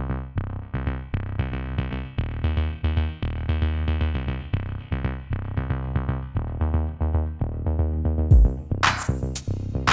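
Electronic backing music: a drum-machine beat with a synthesizer line. Crisp high percussion joins in near the end.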